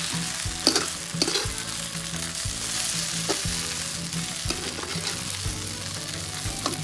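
Tempeh and glass noodles sizzling in hot oil in a wok while a plastic spatula stirs and tosses them, with a few sharper scrapes of the spatula against the pan.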